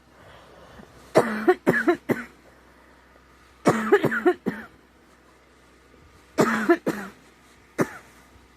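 A girl coughing in three fits of three or four sharp coughs each, then one more cough near the end. She puts the cough down to a scratchy, sore throat and a cold she thinks is coming on.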